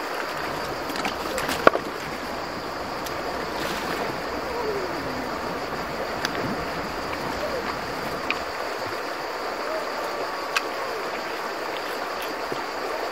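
Shallow river running steadily over stones, with water sloshing and a few sharp clicks of gravel as a gold pan of river gravel is worked under the water.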